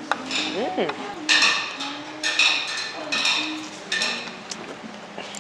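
Ceramic dishes and tableware clattering on a table in a string of short, sudden clinks and knocks, roughly one a second.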